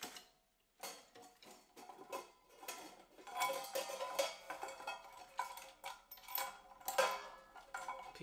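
Scattered light metallic clinks and taps on a drum kit, with faint ringing. They are sparse at first and busier from about three seconds in.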